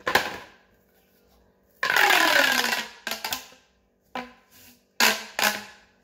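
Orange plastic pop tube (corrugated fidget tube) being stretched and pushed together: a loud ratcheting crackle of about a second with a falling pitch, a sharp pop at the start, and two sharp pops close together near the end.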